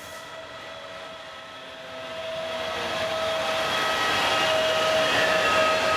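Trenitalia E464 electric locomotive passing close by: a steady electric whine of several tones over the rumble and hiss of the running gear, growing louder from about two seconds in as it nears.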